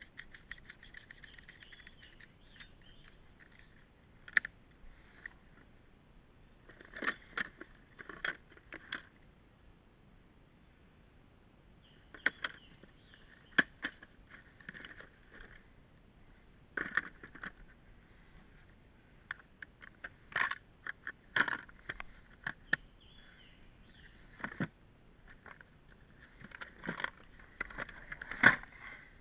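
Metal chainsaw files and tools clinking, and a plastic toolbox and filing-guide case clacking, as the sharpening kit is packed away: scattered sharp clacks and rattles in bunches, with a loud clack near the end as the toolbox lid is shut.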